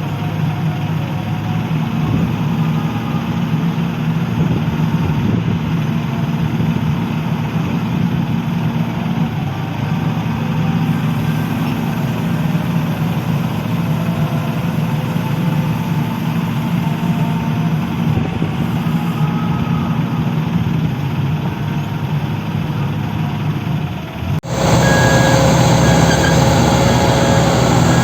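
Diesel engine of heavy construction machinery running steadily. About 24 seconds in, the sound cuts abruptly to a louder machine engine with a high tone that sounds on and off.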